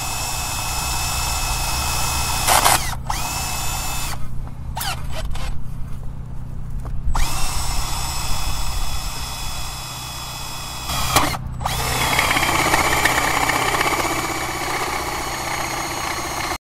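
Cordless drill boring into a concrete foundation wall. The motor runs in bursts, stopping several times and spinning back up with a rising whine each time. It runs rougher and coarser over the last few seconds as the bit cuts in.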